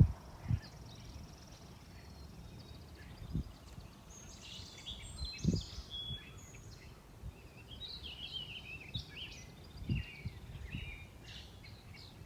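Songbirds singing and chirping in a series of short calls over faint background noise, with a few dull low thumps.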